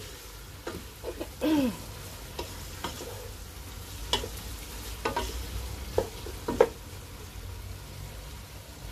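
A wooden spoon stirring frying vegetables in a large pot, knocking against the side of the pot several times, over a steady light sizzle as the vegetables stir-fry on raised heat.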